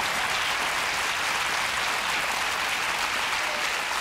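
Studio audience applauding, a dense steady clapping that holds at an even level throughout.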